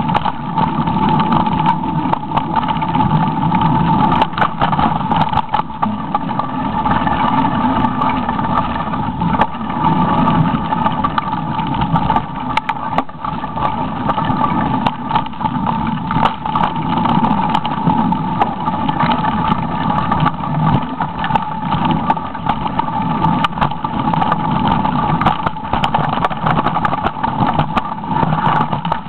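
Mountain bike descending a dirt singletrack at speed, heard from an on-board camera: a steady rush of wind and tyre noise under a steady hum, with constant rattling and clattering knocks as the bike runs over roots and bumps.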